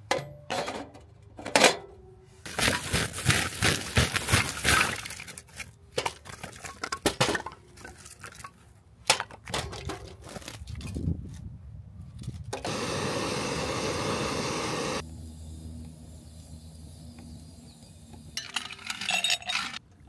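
Stainless steel folding fire grill being handled and assembled: metal plates and grate rods clink, knock and scrape in quick runs. About halfway through there is a steady hiss lasting a couple of seconds, and near the end a few more light clinks.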